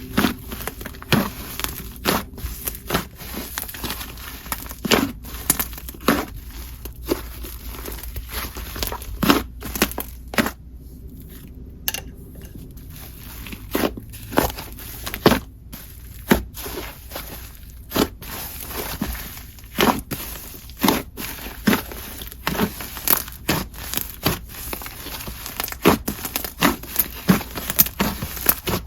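Hands squishing and pressing a soft, fluffy clay slime, giving irregular sharp pops and crackly sizzles, with a short lull about ten seconds in.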